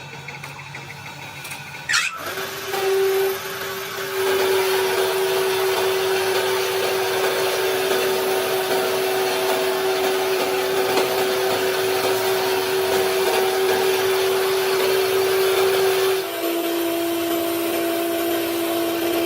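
Electric motor of a workshop power tool running steadily with a hum and a hiss. It starts up after a sharp knock about two seconds in, and its pitch steps down slightly about sixteen seconds in.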